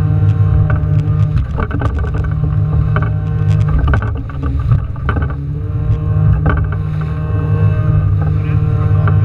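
A boat's engine running steadily under way, with a few knocks in the first few seconds.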